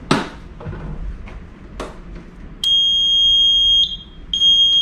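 A sharp clack as a manual release pull station is operated, a lighter click just before two seconds in, then a high-pitched electronic alarm buzzer sounding in long beeps of about a second each from about two and a half seconds in.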